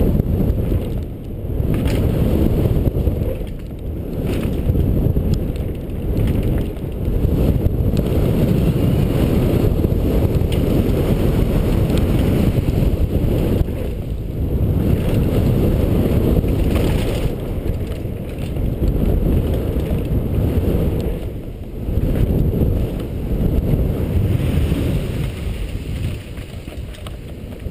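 Wind buffeting a helmet-mounted camera's microphone as a mountain bike is ridden fast down a dirt trail. The tyres and bike rattle and rumble over the rough ground, and the noise swells and dips every few seconds.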